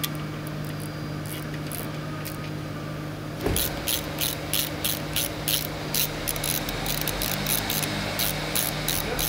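Steady low workshop hum, then from about three and a half seconds in a hand ratchet clicking about three times a second as the bolts of a timing-chain kit are tightened on an engine.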